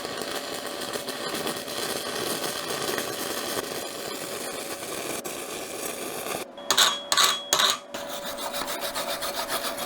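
Stick-welding arc of a 6010 electrode burning on steel from a Yeswelder MIG 250 Pro at about 90 amps, electrode negative: a steady, harsh crackle. A little past halfway it breaks off briefly, gives a few louder sharp crackles, then runs on.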